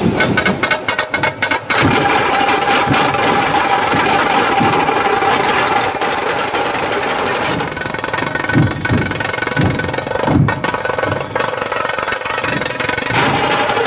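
Procession drums playing amid loud street noise, with a quick run of sharp hits in the first two seconds and a few deep booms later on.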